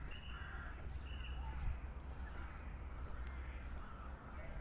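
Birds calling a few times, mostly in the first second and a half, over a steady low rumble.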